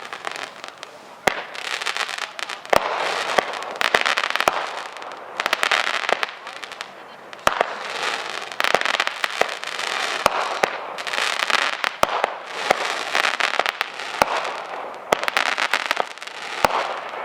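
Dominator Concept Pyro 25-shot multi-shot firework cake firing: a rapid series of sharp launch shots, roughly one a second or closer, each followed by dense crackling from the titanium crackle bursts and crackling tails.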